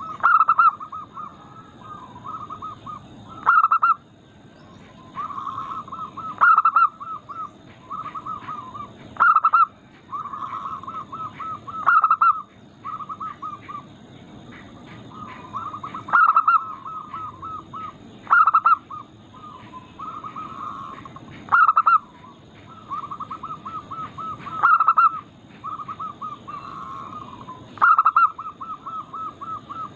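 Zebra doves (perkutut) cooing: loud coo phrases every two to three seconds, with softer, rapid runs of coos in between.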